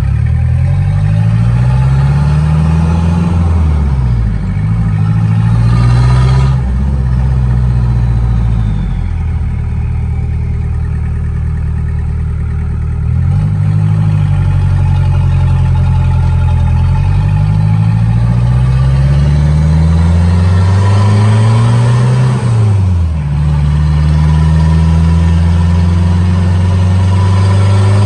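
Turbo diesel engine of a diesel-swapped Mazda B3000 pickup, heard from inside the cab while driving: the engine rises in pitch under acceleration and drops back several times, with steadier stretches of running between.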